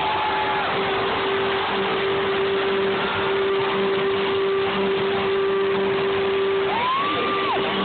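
Arena crowd cheering and screaming at the end of a song, with a steady held tone underneath and a whistle from the crowd near the end.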